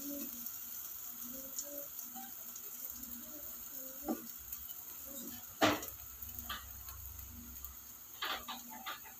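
Pancake batter sizzling in a frying pan, with a wooden spatula tapping and scraping against the pan. The loudest knock comes a little past halfway, and a quick run of taps near the end.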